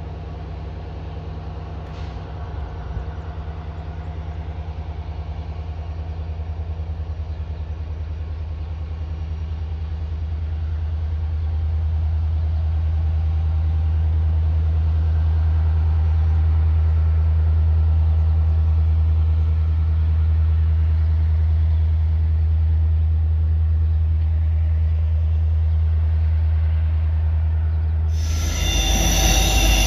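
Diesel helper locomotives running with a deep, steady engine drone that grows louder over about ten seconds and then holds. Near the end it cuts abruptly to high-pitched squealing of steel train wheels on rail.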